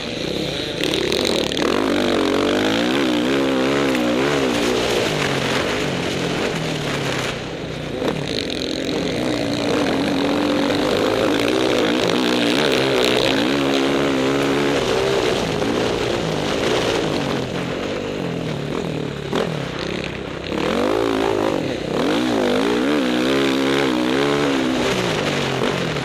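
Off-road motorcycle engine heard close up from on the bike, revving up and down again and again as the throttle is opened and closed over the track.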